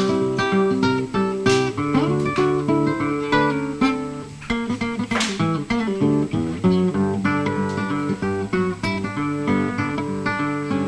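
Background music: acoustic guitar, picked and strummed at a steady pace.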